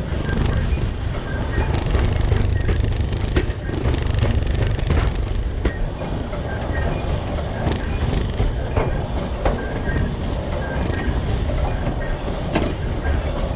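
Train cars rolling past on narrow-gauge track: a steady low rumble with the wheels clicking over rail joints, and short high squeaks repeating about once a second.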